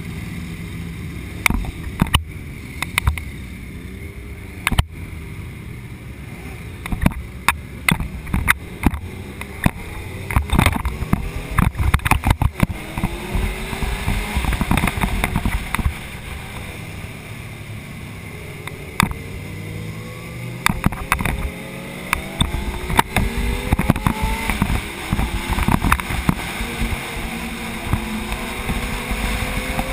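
Race motorcycle engines idling on the starting grid, then the onboard sport bike pulls away and revs up through the gears. From about halfway in, the engine note climbs repeatedly, with wind buffeting on the microphone.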